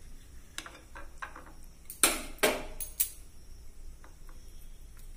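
Kitchen knife cutting through a sandwich on a ceramic plate: light taps and scrapes of the blade on the plate, then a cluster of four sharp clinks of knife and plate about two to three seconds in, one with a short ring.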